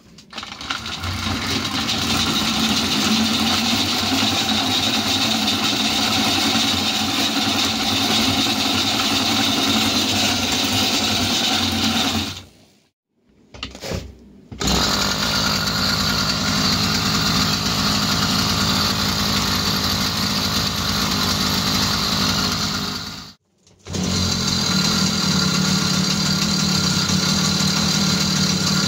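An 80 cc two-stroke bicycle engine running steadily, driving the chain through a jackshaft shifter to the pedal crank and rear cassette. The sound drops out briefly twice, about 13 and 23 seconds in, then the engine carries on.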